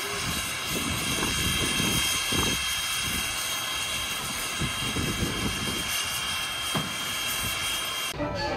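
Steady hissing roar of steam from 2-6-0 steam locomotive No. 89, with several constant high tones and a few faint low thumps. It cuts off abruptly about eight seconds in.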